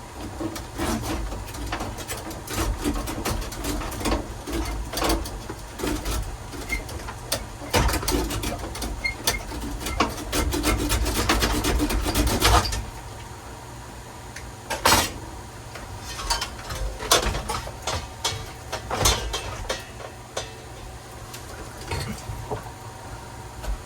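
Rubbing and scraping with many clicks and knocks from truck dashboard parts being unscrewed and pulled loose, busy for about the first twelve seconds, then sparser, sharper knocks.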